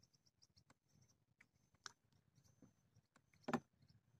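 Near silence, with scattered faint clicks and one short, louder knock about three and a half seconds in.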